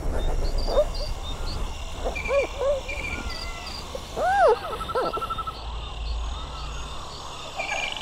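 Giant panda calling: a run of short calls that rise and fall in pitch, the longest and loudest about four seconds in, over a low rumble.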